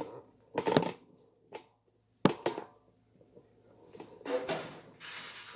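Handling sounds at a countertop toaster oven. A sharp metallic clank about two seconds in is the loudest sound. Softer scraping and rustling follow near the end as a bagel half is set onto the oven's wire rack.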